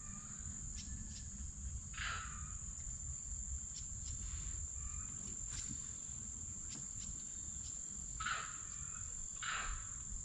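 Insects droning steadily in one unbroken high-pitched tone, over a low steady rumble. A few short faint calls come through about two seconds in and twice near the end.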